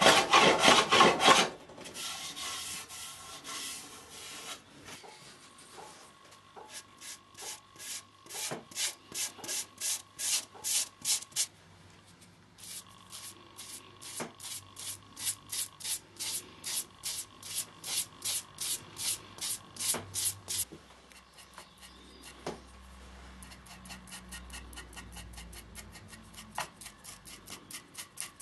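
A brush worked back and forth over bare pine, applying a finish in a long run of quick strokes, about two a second. It opens with about a second and a half of louder hand sanding or scraping of the board.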